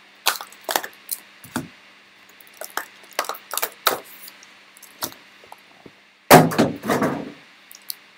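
Foil-wrapped trading card packs crinkling and clicking as gloved hands pull them out of the cardboard box and handle them, with a louder burst of thumps and rustling a little over six seconds in as the packs are set down in stacks on the table.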